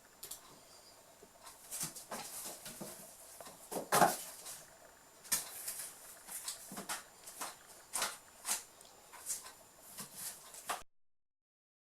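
Birman kittens scrambling and pouncing in and on a cardboard box: irregular scrapes and knocks, the loudest about four seconds in. The sound cuts off suddenly near the end.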